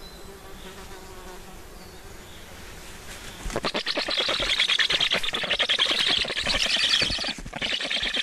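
Black stork chicks begging at the nest as an adult feeds them: a rapid, rasping, buzzing chatter that starts suddenly about three and a half seconds in, with a brief break near the end.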